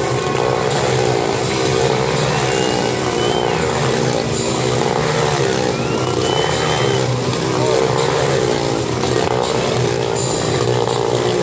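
Dirt-bike engines running hard inside a steel-mesh globe of death, the engine note rising and falling in steady waves as the bikes loop around the sphere.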